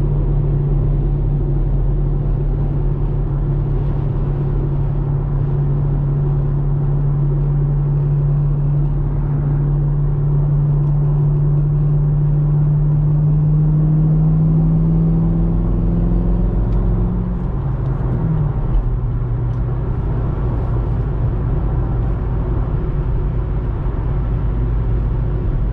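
2010 Chevrolet Camaro SS's 6.2-litre V8 running while driving, with a steady engine note that climbs slowly in pitch. About seventeen seconds in the note drops and settles lower.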